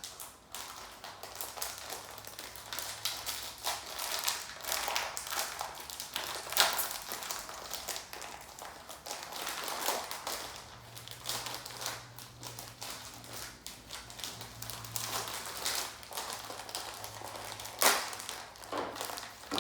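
Handling noise: continual rustling, tapping and clicking of objects being moved about, with two louder knocks, one about six seconds in and one near the end.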